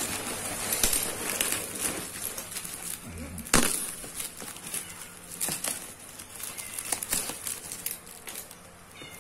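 Bubble wrap crinkling and crackling as it is cut with a kitchen knife and pulled open off a box, with one sharp snap about three and a half seconds in.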